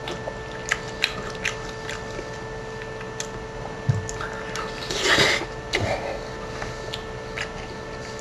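Someone eating melted cheese and bacon with a fork: scattered clicks of the fork against the plate and wet chewing and smacking, with a louder wet sound about five seconds in.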